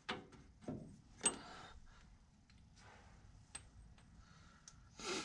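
Faint metal clicks and knocks of hand work on a Jeep CJ5's steering bell crank as a bolt is pushed out of it, the loudest about a second in, then scattered light ticks. Near the end comes a short clatter of hand tools being handled on the floor.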